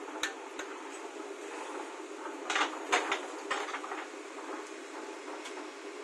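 JCB backhoe loader's diesel engine running steadily while it digs, with a few sharp clanks and knocks: two light ones just after the start and a louder cluster of four about midway.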